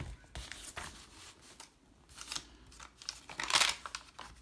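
Tea-dyed paper pages and tags of a handmade junk journal being handled: paper sliding and rustling, with a louder rustle about three and a half seconds in as a page is turned.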